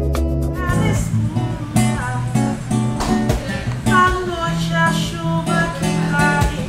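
Music: a song with guitar over a steady bass line.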